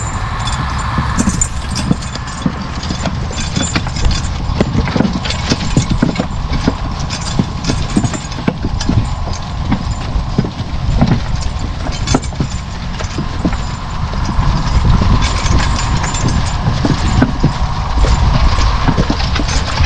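Hooves of a Belgian draft horse walking over very wet ground, an irregular run of hoof falls, over a steady mechanical hum.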